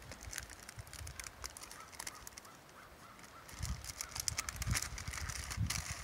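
Crinkling and rustling of a coffee brew-bag packet as it is handled and opened, in many small sharp crackles that grow denser in the second half, with low rumbling thumps from about midway.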